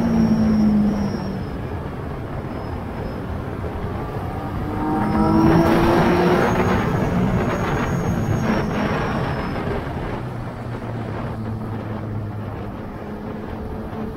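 Yamaha Tracer 900 GT's three-cylinder engine over wind and road rush: the revs drop in the first second, climb under acceleration about five seconds in, then ease off to a lower, quieter, steady drone for the second half.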